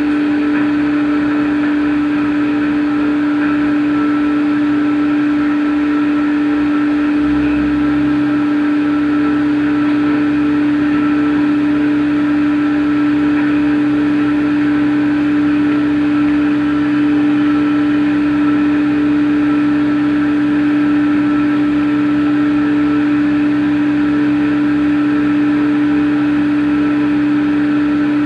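CNC machine running steadily: a constant low-pitched hum with a brief deeper rumble about seven seconds in.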